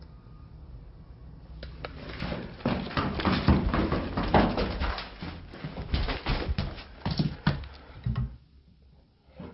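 A dense, irregular run of knocks and scuffs, attributed to the floor above. It builds up about two seconds in and stops suddenly near the end.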